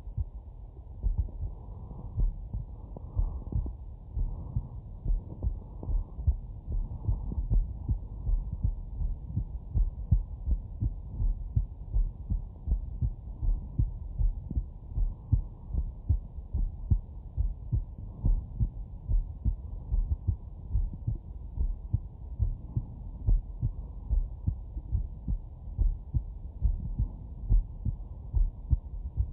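A man's heartbeat picked up through a Stemoscope digital stethoscope: steady, regular dull low thuds, about one beat a second.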